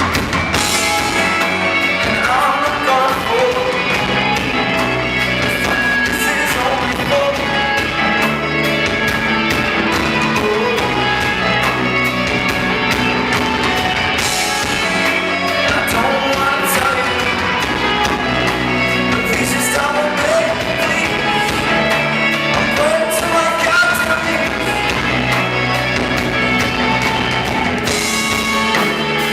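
Rock song with singing over a full band and a steady beat.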